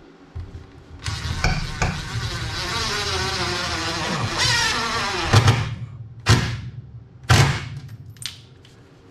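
Power drill driving a large screw through the desk into the wall board: a steady motor whine for about four seconds that drops in pitch as the screw bites, then three short trigger bursts about a second apart to snug it tight.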